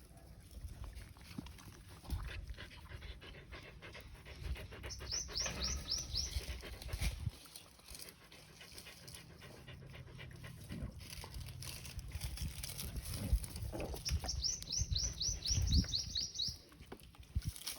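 Dogs eating close by: a run of chewing, smacking and panting sounds. A small bird gives a quick run of high chirps twice, about five seconds in and again near the end.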